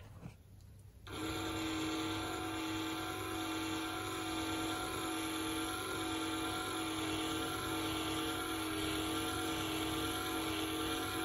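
Small geared DC motor driving a variable air capacitor, running with a steady whine that starts about a second in. It turns the capacitor's plates slowly toward full mesh.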